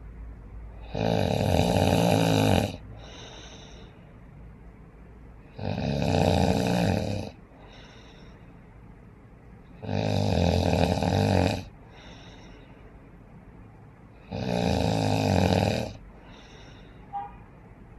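A person snoring: four loud snores about every four and a half seconds, each lasting about a second and a half, with a softer breath between them.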